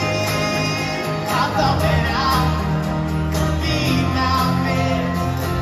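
Live band playing acoustic and electric guitars, with several voices singing together.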